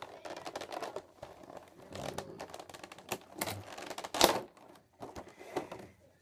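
Clear plastic blister tray of a boxed action figure being handled and flexed: a string of irregular clicks, taps and crackles, with one louder snap a little past four seconds in.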